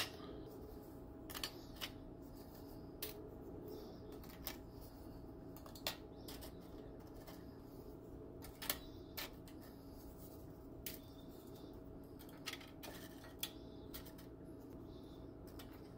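Graham crackers being laid in a glass baking dish and broken to fit: scattered light clicks and taps, about one every second or two, over a faint steady hum.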